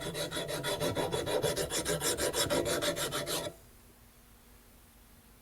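Hand file rasping back and forth on a steel mower-deck spindle in quick, even strokes, several a second, smoothing off roughness and a small hammer dent. The filing stops abruptly about three and a half seconds in.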